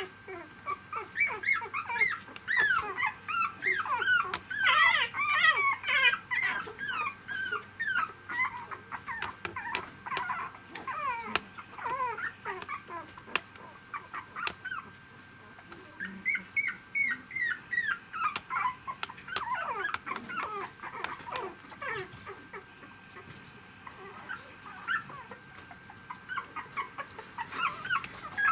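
Three-week-old poodle puppies whimpering and squeaking: many short, high calls, often overlapping, coming in spells with a few quieter gaps.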